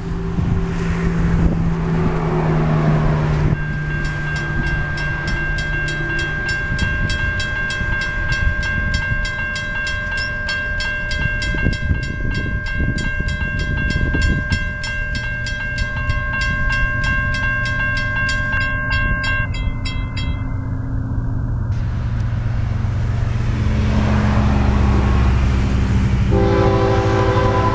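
CSX freight locomotives approaching with a low diesel rumble that builds through the second half. A grade-crossing bell rings fast and steadily from a few seconds in until about two-thirds of the way through, then stops. The locomotive's air horn sounds at the start and again near the end.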